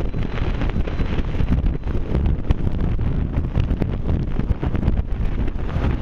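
Wind buffeting the microphone of a moving vehicle, a steady loud rumble and flutter mixed with road noise.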